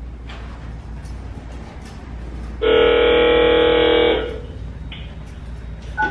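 A car's steady low road rumble, cut about two and a half seconds in by a loud, steady, even tone that lasts about a second and a half.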